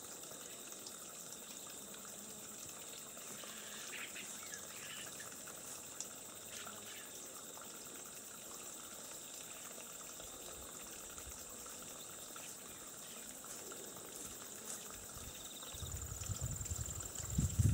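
Faint, steady trickle of water seeping down a rock face into a pool, with a few soft clicks and rustles from a feral boar rooting in the undergrowth. A low rumbling noise builds near the end.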